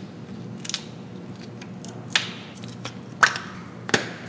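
A handful of sharp metallic clicks and taps at uneven intervals, the loudest two near the end, from a wrench handled against the engine's cylinder head.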